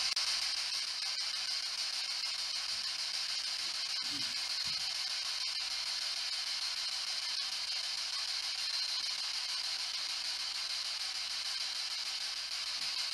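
Ghost box (spirit box) giving out a steady hiss of radio static as it scans through stations.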